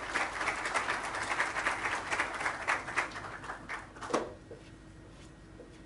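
Audience applauding, a dense patter of claps that dies away about four seconds in, leaving a quiet hall with a faint steady hum.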